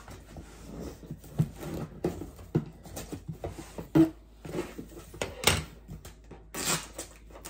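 A large cardboard shipping box being handled and opened by hand: irregular knocks and rustles against the cardboard, a sharp knock about four seconds in, and a few longer scraping sounds near the end.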